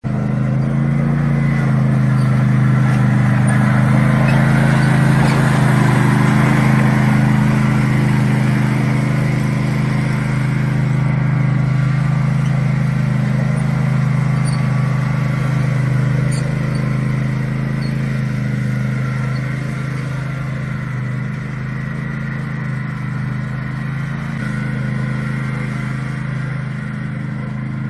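A Toro zero-turn riding mower's engine runs steadily under load while mowing over fallen leaves. It is loudest for the first several seconds and grows somewhat fainter past the middle.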